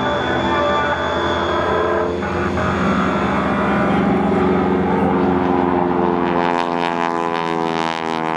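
Propeller airplane's piston engine running steadily during an aerobatic display, its pitch sinking slightly in the last few seconds.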